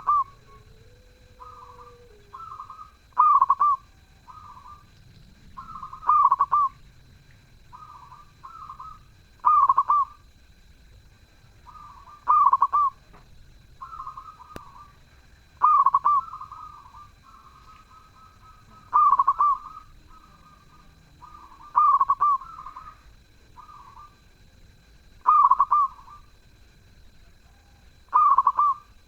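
Zebra dove (perkutut) cooing over and over, a loud rolling coo phrase about every three seconds with softer coos between.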